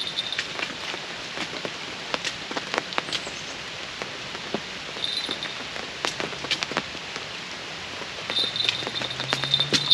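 Steady rain falling, with many scattered sharp drop ticks. A brief high rattle sounds about five seconds in and returns near the end.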